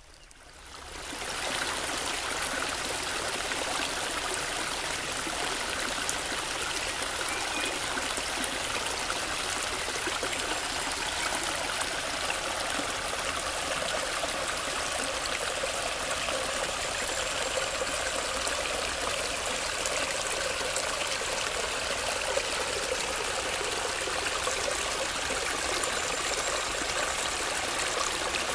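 A small artificial mountain brook running over stones and little cascades, a steady rush of water. The sound fades in over the first second or two.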